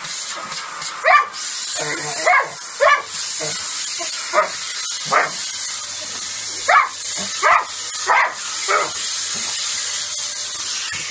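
A black flat-coated retriever barks at the nozzle of a running stick vacuum cleaner, giving about ten short, high barks and yips at irregular intervals. Under the barks runs the vacuum's steady high hiss.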